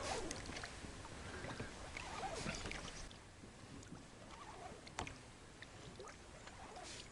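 A small boat being rowed slowly and quietly, oar blades dipping and swishing softly in the water. A single sharp knock comes about five seconds in.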